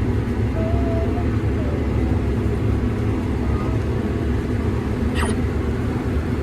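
Combine harvester running steadily while cutting corn, a continuous low drone. A short, sharp rising chirp about five seconds in.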